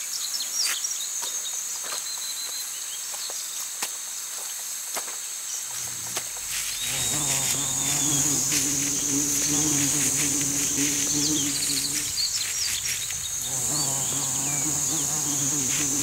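Flies buzzing close by, starting about six seconds in, breaking off briefly and then coming back, over a steady high-pitched insect chorus with scattered small clicks.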